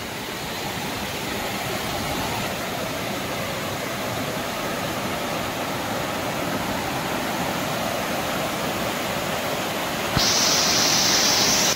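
Rushing water of a rocky jungle stream, a steady rush. About ten seconds in it jumps suddenly to a louder, hissier waterfall rush.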